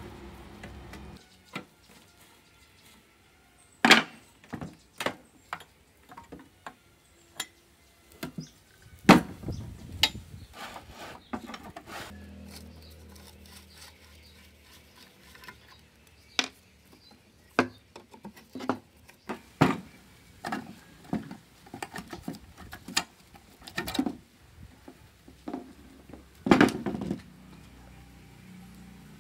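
Irregular clinks and knocks of tools and metal parts being handled and set down, one every second or so, with a few louder knocks.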